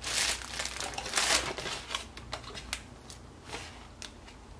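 Packaging of a makeup brush set being handled and opened: rustling and crinkling in several short bursts, the loudest about a second in, growing quieter in the last second or so.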